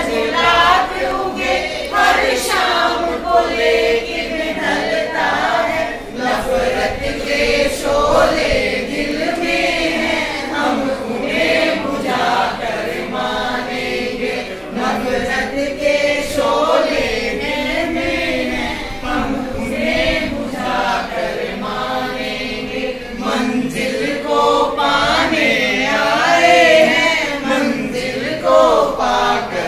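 A roomful of men and women singing a Hindi song together from lyric sheets, without instruments.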